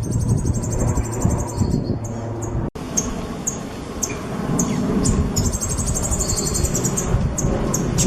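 A caged songbird singing: two fast, high rattling trills of rapidly repeated notes, one at the start and one about five seconds in, with short sharp chirps between, over a steady low background rumble.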